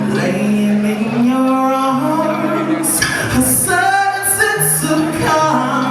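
A song performed live: a woman sings held, wavering notes over sustained low accompaniment chords.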